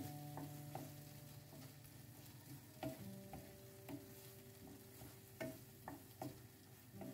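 Wooden spatula stirring and scraping chicken pieces through a thick creamy tomato sauce in a nonstick frying pan, with irregular soft knocks against the pan, while the food sizzles faintly.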